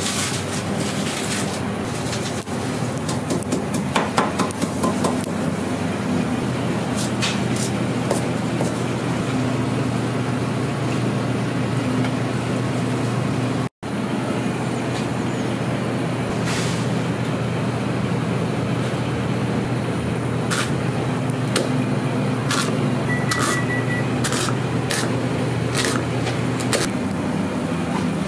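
Steady roar of a busy noodle-shop kitchen, with scattered clinks and knocks of utensils and cookware. The loudest knocks come about four to five seconds in. Near the end there is a short run of quick electronic beeps, and the noise cuts out for an instant about halfway through.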